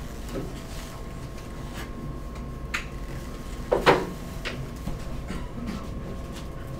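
Handling noises as equipment is worked on a table: scattered light clicks and rubbing, with one louder knock about four seconds in, over a faint steady electrical hum.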